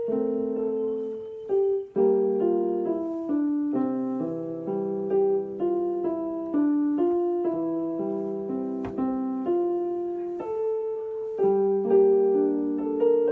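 Background piano music: a calm piece of single notes and chords, each struck and left to ring away.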